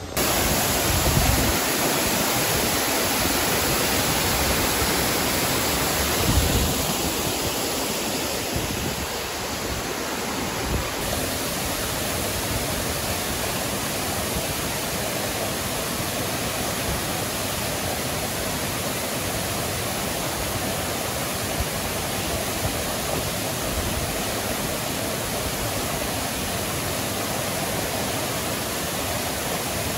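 Waterfall pouring down rocks into a shallow pool: a steady, even rush of water. There are a couple of brief low thumps about one and six seconds in.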